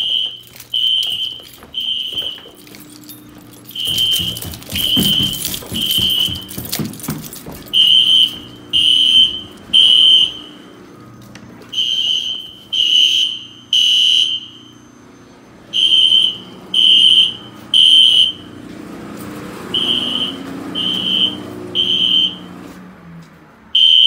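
System Sensor P1224MC horn strobes sounding the temporal-3 evacuation signal: three short high beeps, a pause, then three more, repeating, with some groups louder than others. Thumps and rustling come in around four to seven seconds in.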